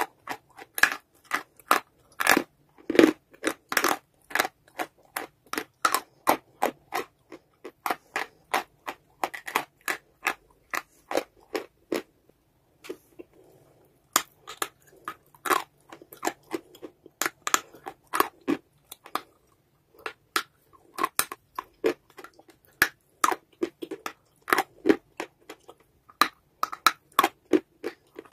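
Dry chalky clay being bitten and chewed: a fast, irregular run of sharp crunches that thins out briefly about twelve seconds in.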